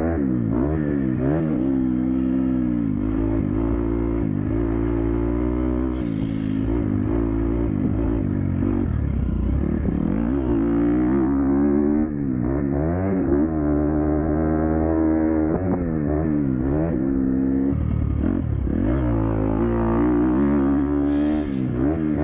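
Dirt bike engine being ridden hard, the revs climbing and dropping every couple of seconds as the throttle opens and closes through the gears.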